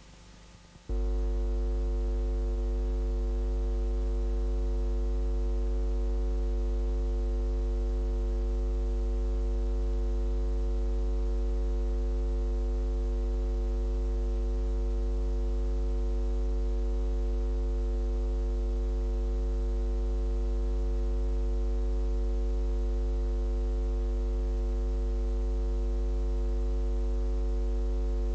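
Steady electrical mains hum: a strong low drone with a stack of higher buzzing overtones, switching on abruptly about a second in and holding unchanged.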